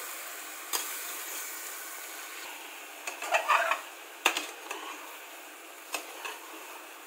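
Metal spoon stirring diced potatoes frying in oil in a pressure cooker pot, with a steady sizzle and a few sharp clinks of the spoon against the pot's side.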